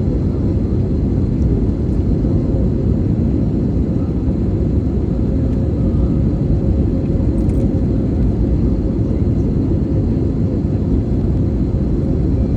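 Airliner cabin noise: a steady low rumble of engines and airflow, with a faint steady hum running through it.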